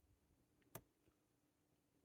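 Near silence with one faint click about three-quarters of a second in: a disc detainer pick working the discs of a Gerda HSS 531Z disc detainer padlock.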